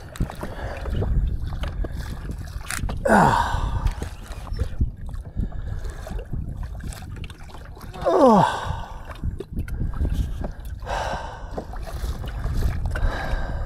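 An exhausted angler's heavy breathing and groans while fighting a large fish: two groans sliding down in pitch about three and eight seconds in, and hard gasping breaths near the end, over a steady rumble of wind and water.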